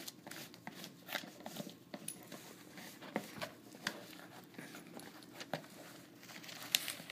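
A small dog's claws scratching and tapping at a gift-wrapped box, the wrapping paper rustling in short, irregular scrapes.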